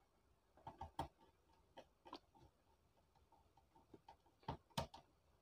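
Near silence with a few faint, scattered clicks and ticks of a screwdriver and wires being handled at a car preamp's screw terminal block, the two clearest near the end.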